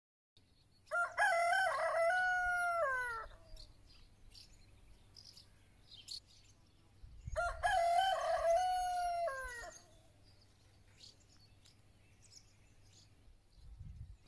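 A rooster crowing twice, each crow a long call of about two and a half seconds that falls in pitch at its end, the two about six seconds apart. Faint small-bird chirps come in between.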